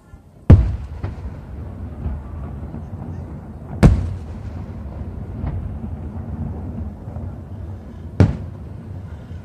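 Aerial firework shells bursting: three loud booms, the second about three seconds after the first and the third about four seconds later, each followed by a low rumbling echo, with a few fainter cracks in between.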